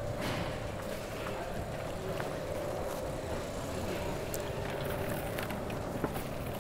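A steady mechanical hum with a constant noise bed, over which the plastic seat-pour bag full of resin-coated foam beads gives a few faint crinkles as it is lifted and carried.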